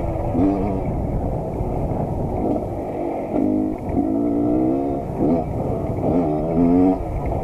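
Motorcycle engine revving again and again, its pitch wavering and rising and falling over a constant low rumble.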